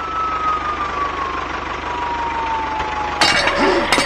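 Tractor diesel engine running steadily with an even low pulse, under a thin tone that slowly falls in pitch; about three seconds in the sound turns louder and rougher.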